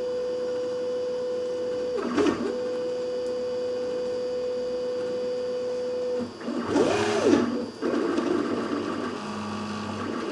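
3D printer stepper motors whining at a steady pitch as the hot end moves. The pitch dips and recovers briefly about two seconds in, then, around seven seconds in, sweeps up and back down alongside a short burst of noise before settling into a lower, rougher running sound. The slow Z-axis is raising and lowering to follow the uneven bed under auto bed leveling.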